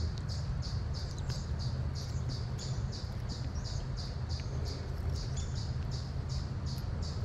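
A steady run of short, high chirps, evenly spaced at about three a second, over a low steady rumble.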